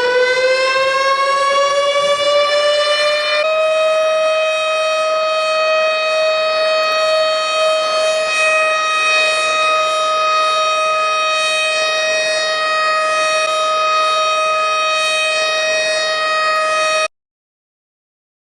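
Ship's alarm siren giving the abandon-ship alarm: a siren tone that rises in pitch for the first three or four seconds, then holds one steady note and cuts off suddenly about a second and a half before the end.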